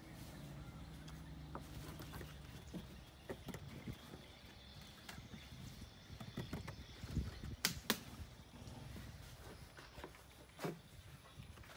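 Faint scattered clicks and knocks from a baby macaque's hands and feet scrabbling on a hard plastic box lid; the loudest is a sharp click about eight seconds in. A low steady hum sits under the first few seconds.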